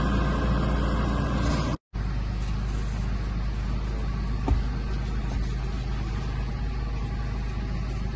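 Crawler bulldozer's diesel engine running steadily under load while it moves a manufactured home, with a brief dropout just under two seconds in and a single sharp knock about halfway through.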